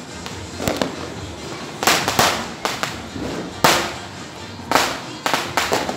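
Firecrackers going off: a string of about ten sharp bangs at irregular intervals, the louder ones trailing off in a short echo.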